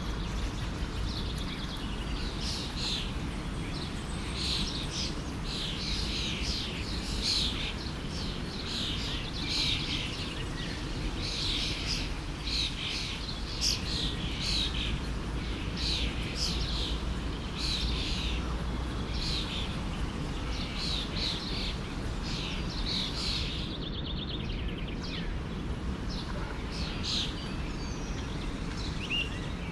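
Birds chirping in many quick, short calls, one after another, over the steady rush of a forest stream.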